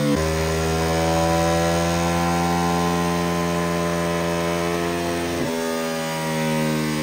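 2022 Ducati Hypermotard 950 SP's 937 cc L-twin running loud under load on a rolling-road dyno, breathing through a full titanium VanDemon decat exhaust. The note drifts slowly in pitch and breaks briefly just after the start and again about five and a half seconds in. This is a dyno run logging the air-fuel ratio of each cylinder, to check whether the fuelling is lean with the new exhaust.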